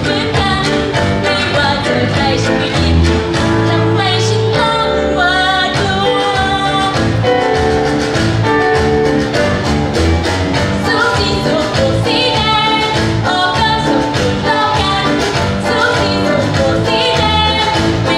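A woman singing a song in Thai over musical accompaniment with a steady beat.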